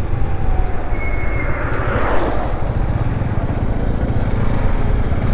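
Motorcycle in motion: engine running under a loud, steady rumble of wind on the GoPro microphone, with a brief swell of hiss about two seconds in.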